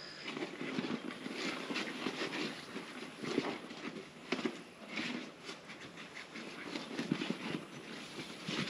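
Irregular knocks, clanks and rubbing as a small tubed bush hog tire is worked by hand on its steel wheel rim.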